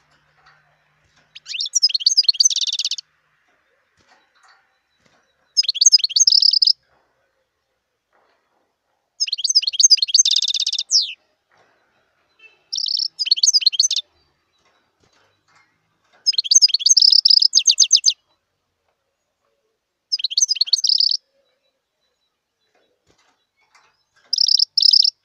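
Song of a wild European goldfinch: seven short bursts of quick, high twittering, each one to two seconds long, with pauses of two to three seconds between them.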